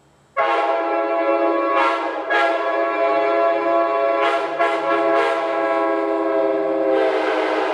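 Multi-chime locomotive air horn blown on compressed air. It starts sharply about half a second in and holds a steady chord, with short surges of air hiss as the valve is worked. A rush of air comes in near the end.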